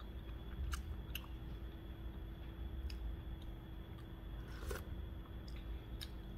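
A person quietly chewing food, with a few faint utensil clicks, the clearest about two thirds through, over a steady low room hum.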